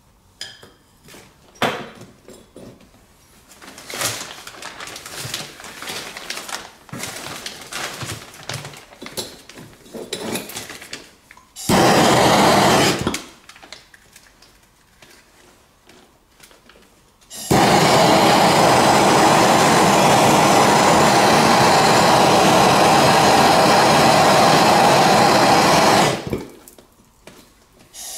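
Handheld gas torch firing at a copper pipe joint in a loud, steady rush of flame: a short burst about twelve seconds in, then a longer one of about eight seconds that cuts off sharply. Before it, light clinks and clatter of tools being handled.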